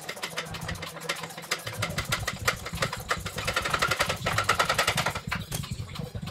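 Tool clicking rapidly and evenly as the rear tie rod (toe adjuster) nut is run off; the clicking stops about five seconds in.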